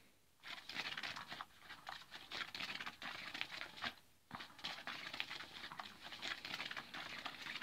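Cat's Meow motorized cat toy running, its hidden wand sweeping under the nylon cover: a steady crinkly rustling with small ticks. It starts about half a second in and stops briefly about four seconds in.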